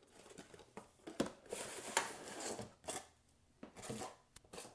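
Cardboard packaging and a paper leaflet being handled: scraping and rustling with a few sharp taps, the loudest about one and two seconds in.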